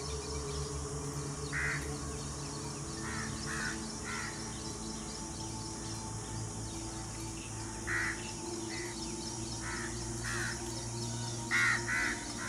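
About ten short animal calls, some in quick pairs, with the loudest pair near the end, over a steady low music bed.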